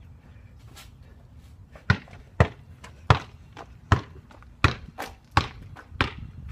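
A basketball being dribbled: seven sharp bounces about two-thirds of a second apart, starting about two seconds in.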